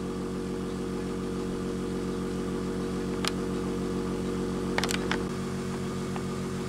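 Small air compressor running steadily to drive a UGears wooden pneumatic engine model: an even hum with a fast, regular pulse. A few sharp clicks come about three and five seconds in, and the hum's tone shifts slightly just after five seconds.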